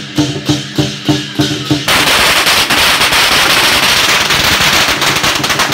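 Lion-dance drum and cymbals beating steadily at about four to five strokes a second, then about two seconds in a string of firecrackers goes off in a loud, rapid, continuous crackle that drowns out the beat until just before the end.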